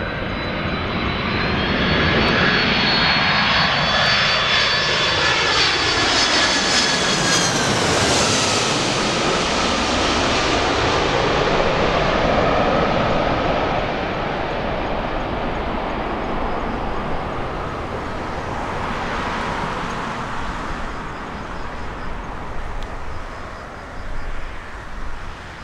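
Boeing 767 tanker's twin turbofans at approach power passing low overhead: a loud rumble with high whining tones that drop in pitch as it passes over about eight seconds in, then fade as the jet moves away.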